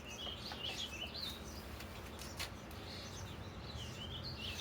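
A bird chirping and warbling over and over in short wavering phrases, with a few sharp clicks, the clearest about halfway through.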